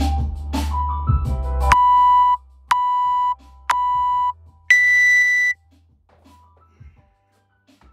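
Workout countdown timer: a short stretch of music cuts off, then three short beeps about a second apart and a longer, higher-pitched beep signalling the start of the workout. Faint knocks follow.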